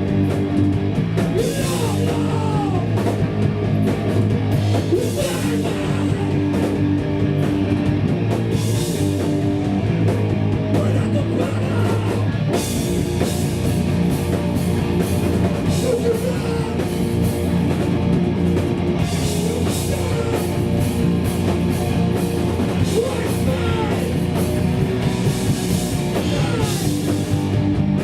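Live hardcore punk band playing loud and fast, with distorted guitars, bass and drum kit; the riff changes about twelve seconds in.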